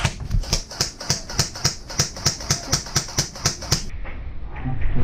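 Rapid, even ticking, about four to five ticks a second, that cuts off abruptly near four seconds in.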